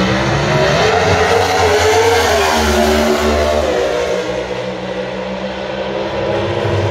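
Nitro funny car's supercharged nitromethane V8 at full throttle down the drag strip. It is a loud engine roar that climbs in pitch for about two seconds, then falls as the car pulls away down the track.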